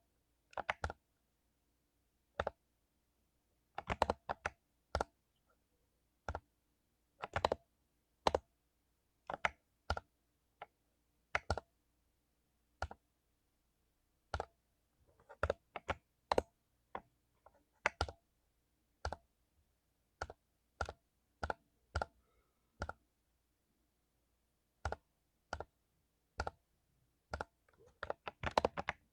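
Mechanical keyboard with lubed Cherry MX Silver switches being typed on: single keystrokes and short clusters of clicks at an uneven pace, with pauses of a second or two between.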